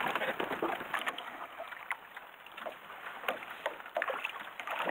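Water lapping against the hull of a small open boat drifting on choppy water, with a few light knocks.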